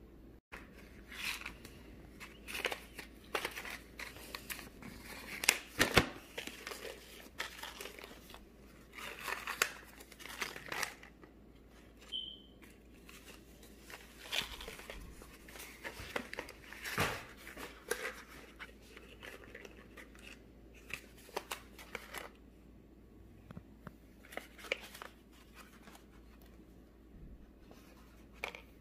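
Paper and packaging rustling and crinkling in irregular bursts as a paper envelope of dog pills is handled, with scattered small clicks and taps.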